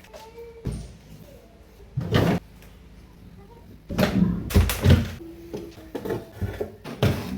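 Refrigerator doors, drawers and containers being opened, shut and handled: a few short knocks and clatters with pauses between.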